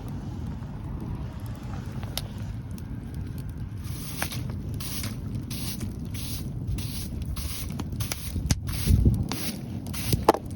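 Wood fire of logs burning, with wind buffeting the microphone in a low rumble. From about four seconds in, a string of short crackles and hisses comes roughly twice a second.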